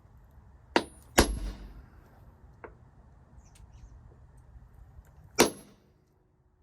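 Sharp metallic clanks of metal objects knocking together, three loud ones about a second in, just after, and about five seconds in, with a fainter one between, each ringing briefly.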